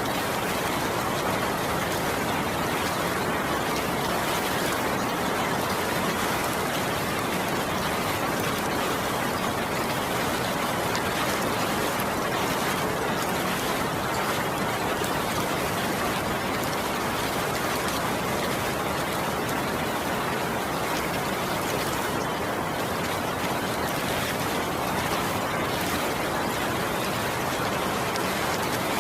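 Steady rain falling, an even unbroken hiss with no change in level.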